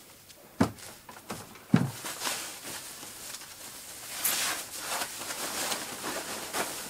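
Two thumps as the subwoofer cabinet is rolled over on the wooden table, the second the louder. Then the plastic protective bag rustles steadily as it is pulled off the cabinet.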